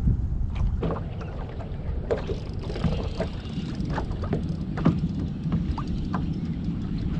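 Water lapping against the hull of a small fishing boat under a steady low rumble, with scattered light clicks and knocks.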